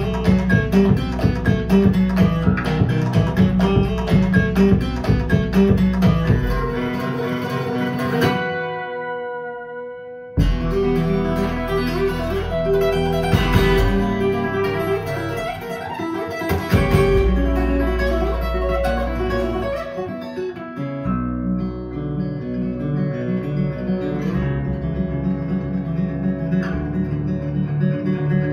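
Guitar-led music played back through KEF LS60 Wireless speakers. About eight seconds in the sound dies away to a fading ringing chord, then the music comes back in suddenly about two seconds later.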